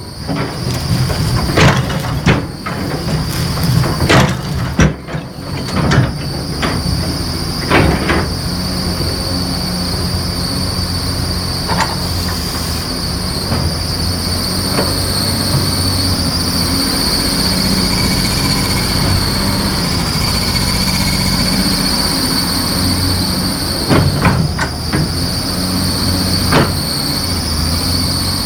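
CAT 330C excavator's diesel engine running steadily, with a constant high-pitched whine over it. Sharp clicks and knocks come in the first several seconds and again a few seconds before the end.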